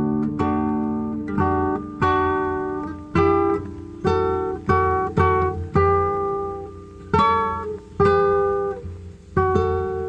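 Acoustic guitar music: plucked and strummed chords, about one a second, each left to ring and fade before the next.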